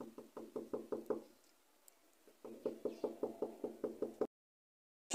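Knuckles rapping quickly on a wooden door: a run of about eight fast knocks, a pause of about a second, then a longer run of a dozen or so.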